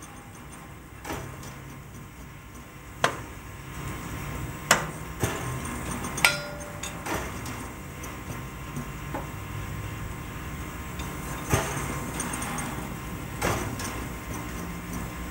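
Hammer taps on a steam locomotive's running gear and fittings: about nine single metallic knocks a second or two apart, some ringing briefly, over a steady low hum. This is the driver's check by ear for loose parts or hairline cracks that the eye cannot see.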